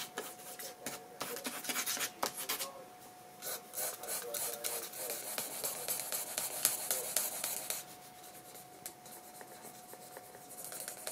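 Pen scratching quick hatching strokes on sketchbook paper, in two fast runs of strokes with a short break between, then lighter strokes near the end.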